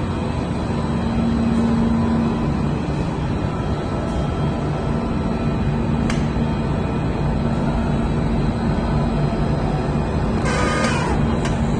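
Steady running noise of a PVC foam board production line and its board-handling machinery, with a constant low hum. A brief shrill sound comes about ten and a half seconds in.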